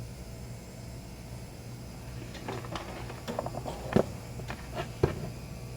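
Small clicks and taps of hard parts being handled, with two sharper knocks about four and five seconds in, over a steady low electrical hum.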